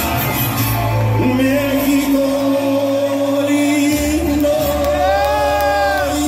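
A man singing live into a microphone over backing music, holding long sustained notes over a low bass line.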